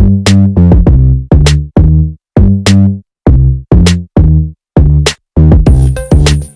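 Electronic music with a loud, repeating bass-heavy beat, about two to three hits a second; a busier layer with a high steady tone comes in near the end.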